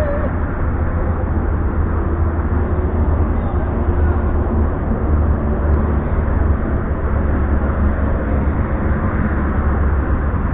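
Steady low rumble of wind on the microphone, with a quarter midget race car's small engine running at a distance as it laps the track.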